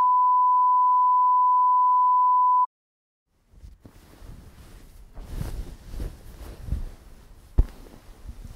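A steady, pure beep tone like a broadcast test tone, held for about two and a half seconds and cutting off abruptly. After a second of silence, soft, uneven rustling of bedsheet fabric follows, with low bumps and one sharp click near the end.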